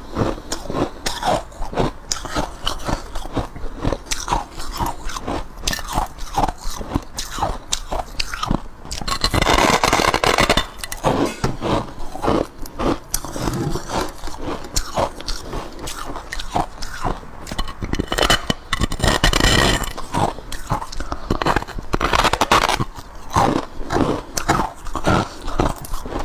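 Close-up biting and chewing of a large block of soft white ice: rapid crisp crunches, with two longer stretches of denser, louder crunching about ten and nineteen seconds in.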